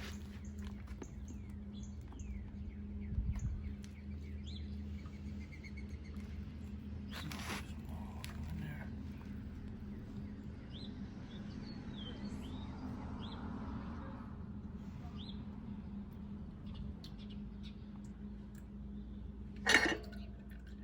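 Small birds chirping now and then over a steady low hum, with a click about a third of the way in and a sharper knock near the end.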